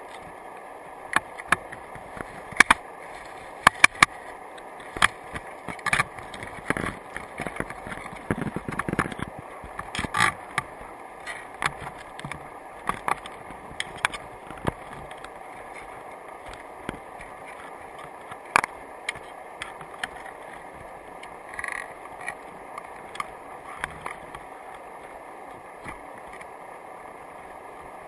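Crabs' shells and legs clicking and tapping against an underwater camera housing and crab trap, many sharp clicks in the first half and scattered ones later, over a steady underwater hiss.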